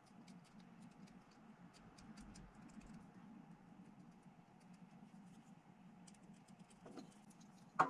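Faint scattered clicks and ticks of small plastic miniature parts being handled and pressed together between the fingers, over a low steady hum. One sharper, louder knock right at the end.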